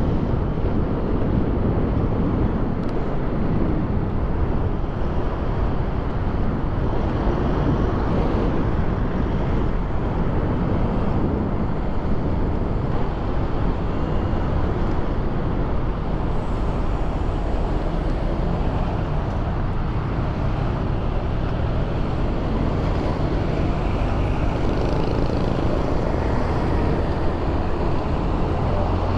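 Steady wind and road noise from riding an electric scooter on pavement on its freshly fitted tyre. A few faint steady low tones come in near the end.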